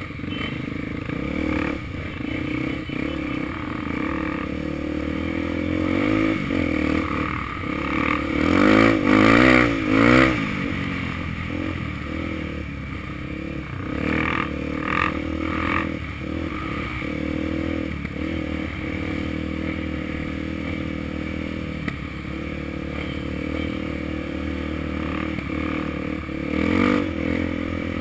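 Honda Tornado trail bike's single-cylinder four-stroke engine running under way, revving up and back down several times, with the loudest rises about a third of the way in and again near the end.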